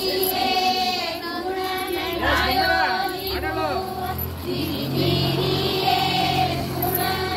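Female and girls' voices singing a song together as a group, with long held notes, over music with a low steady bass.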